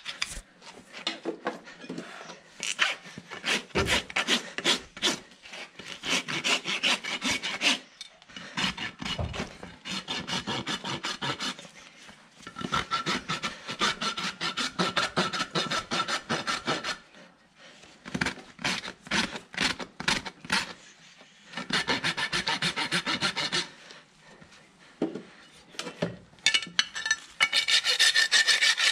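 A farrier's rasp filing down a horse's bare hoof, in runs of quick back-and-forth scraping strokes broken by short pauses.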